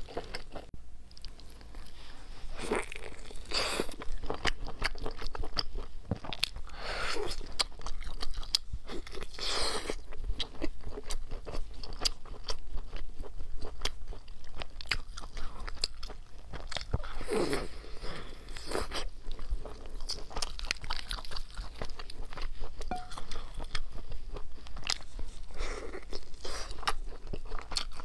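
A person chewing and biting food close to the microphone: dense small crunches and clicks of eating.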